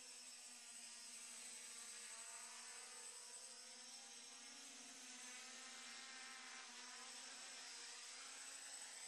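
Faint buzz of a custom-built B-4 quadcopter's MT2213 1100 kV brushless motors and propellers, steady with a slightly wavering pitch, as the quadcopter flies and sets down with its motors still running.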